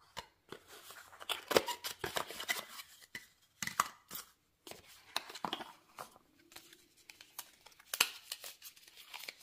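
Cardboard and paper packaging being handled: irregular rustling and scraping with sharp clicks and snaps as the inner tray and the cardboard cable holder are lifted out and pulled apart.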